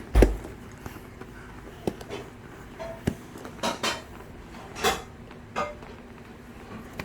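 A loud thump just after the start, then irregular light knocks and clatters of small hard objects being handled.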